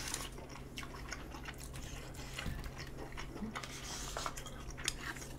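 A person chewing food close to the microphone, with irregular small clicks and wet mouth sounds.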